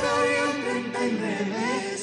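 Peruvian Andean folk music: voices singing a melody that bends up and down, with the bass and drums dropped out for the moment.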